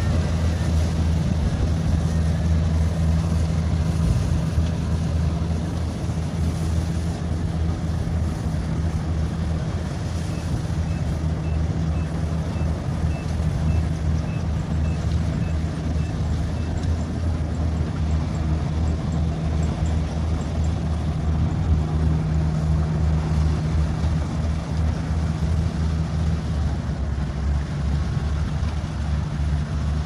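Kubota DC-70 rice combine harvester running steadily while cutting rice, its diesel engine and threshing machinery making an even, low hum.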